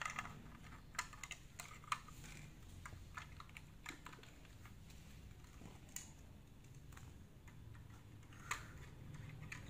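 Plastic LEGO bricks clicking and clattering as pieces are handled and fitted on a model: faint scattered clicks, most of them in the first two seconds, with a few more later.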